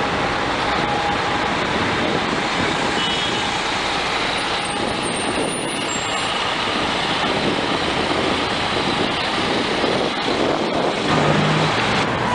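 Diesel coach bus driving past at close range and pulling away, its engine and tyre noise over the steady din of city street traffic.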